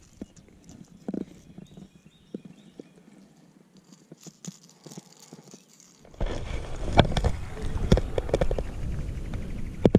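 Handling noise from unhooking and releasing a caught largemouth bass: scattered light clicks and knocks. From about six seconds a louder stretch of low rumble and sharp knocks follows as the fish is lowered over the side of the boat into the water.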